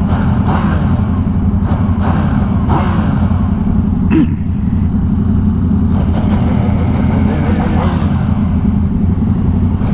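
Motorcycle engine running under way, a steady low drone with a few rises and falls in pitch as the revs change.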